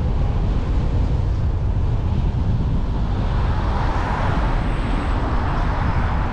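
Car driving along a town street: a steady low rumble of engine, tyres and wind. A broader hiss swells up a few seconds in and fades again.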